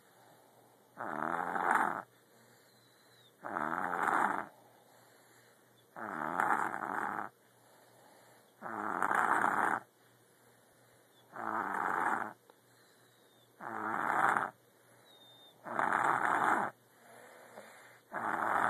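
Steady rhythmic snoring: about eight loud rasping snores, one roughly every two and a half seconds, each lasting about a second, with quiet breathing in between.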